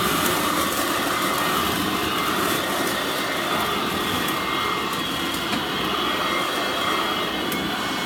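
Sanitaire upright vacuum cleaner with a shake-out bag running steadily: a constant rush of air with a thin, high motor whine over it.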